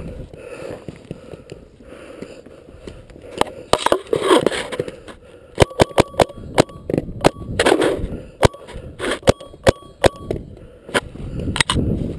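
Paintball markers firing: sharp pops, a quick string of them about halfway through and more single shots scattered after it.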